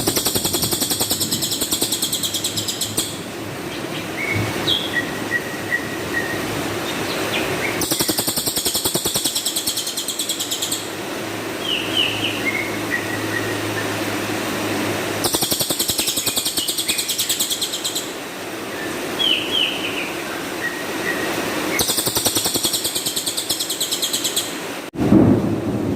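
Cililin songbird singing: harsh, high, very rapid trilled bursts about three seconds long, repeating about every seven seconds, with short scattered chirps between them over a steady low background hiss.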